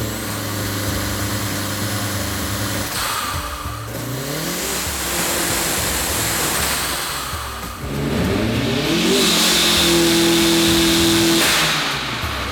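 Turbocharged Honda S2000 engine revving twice, the second time to higher revs, and the Synapse SB blow-off valve venting to atmosphere with a hiss each time the throttle closes, about three seconds in and again near the end.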